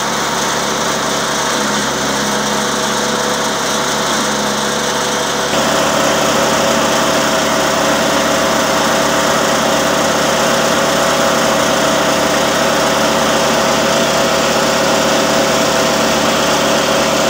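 Small single-cylinder petrol engine of a homemade belt-driven branch chipper running steadily. It gets louder about five and a half seconds in.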